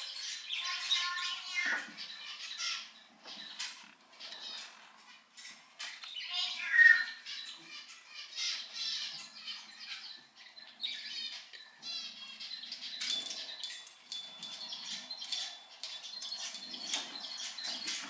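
Cockatiel chick making repeated raspy, chattering calls while being offered food, with a louder squawk about seven seconds in.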